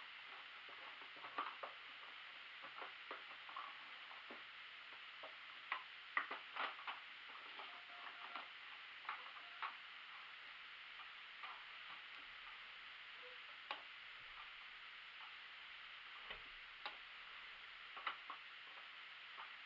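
Faint, irregular clicks and light fabric rustling as cloth is handled and drawn out from under a domestic sewing machine's presser foot, over a steady hiss.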